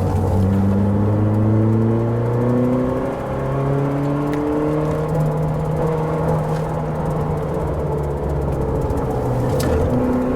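Car engine under load, its pitch climbing slowly as it pulls up through the revs, with a short drop about three seconds in, like a gear change, over steady road and tyre noise.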